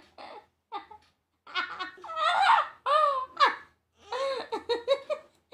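A woman laughing in a string of short bursts that are loudest in the middle.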